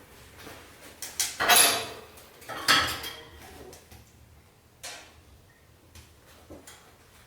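Metal fittings of a Plamen Maestral wood-burning stove scrape twice, a little over a second apart, then give a sharp click: the stove's air controls being worked.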